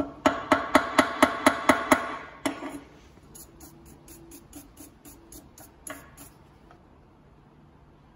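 A hammer strikes a metal stove ring about four times a second for two seconds, each blow ringing, with one more blow shortly after. A stiff paintbrush then scrubs rhythmically over the ring for about three seconds.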